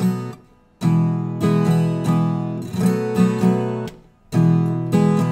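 Viola caipira strummed in the cururu rhythm, a down-up-down stroke pattern with the chords cut short by muted 'matada' strokes. The phrases break off briefly near the start and again about four seconds in.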